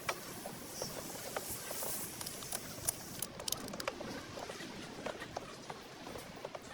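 Scattered light clicks and taps over a low steady hiss.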